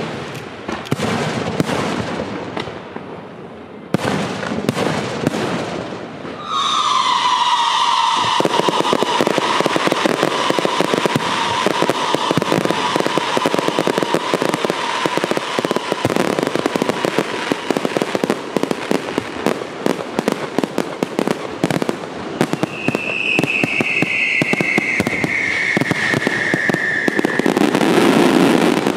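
Aerial fireworks show: a few separate bangs over the first six seconds, then from about six and a half seconds a dense, continuous crackle of many rapid reports. A long whistle, falling slightly in pitch, rides over the crackle for several seconds, and a second, higher falling whistle comes near the end.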